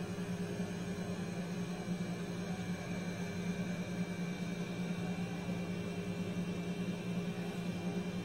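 Steady low electrical hum with a faint whir, unchanging throughout, from a background appliance or fan.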